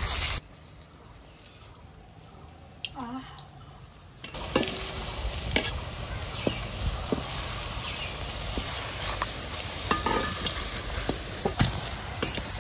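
Soybean dumplings sizzling as they deep-fry in oil in a wok, with a metal spatula clicking and scraping against the wok as they are turned and lifted out. The sizzling drops away about half a second in and comes back about four seconds in.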